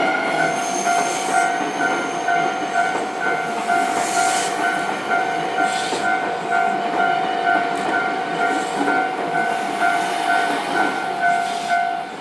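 A Japanese railway level-crossing alarm rings a rapid, evenly repeated electronic clang, about two strokes a second, over the rumble and clatter of a passing train. The alarm stops just before the end as the crossing clears, and the train noise fades.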